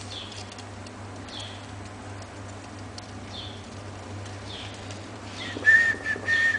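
Faint steady background with soft ticks about once a second. Near the end, a person whistles a steady high note in a few short held phrases.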